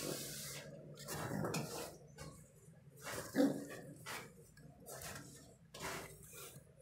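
Brooding domestic pigeon on its nest giving short, low, breathy grunts a second or two apart: the defensive threat call of a sitting bird warning off an approaching hand.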